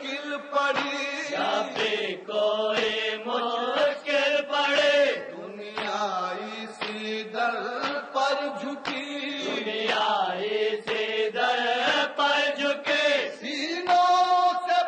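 A male voice chanting an Urdu noha, a Shia lamentation, in held, melodic phrases.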